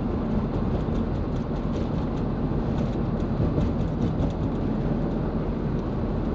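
Steady road noise heard from inside a van's cab while driving at motorway speed.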